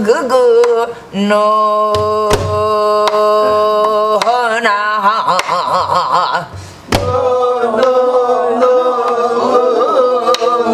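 A woman singing gueum, the wordless Korean vocal line sung on syllables, in long held notes with a deep vibrato in the middle phrase, with a few strokes on a buk barrel drum.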